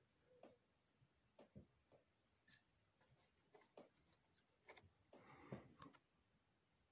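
Near silence: room tone with a few faint clicks and taps from fingers handling a small clear plastic plaque, a little busier about five seconds in.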